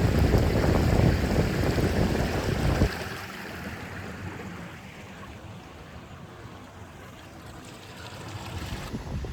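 Heavy wind rumbling on the microphone over an outdoor rush of water, cutting off abruptly about three seconds in to a much quieter, steady rush that slowly swells again toward the end.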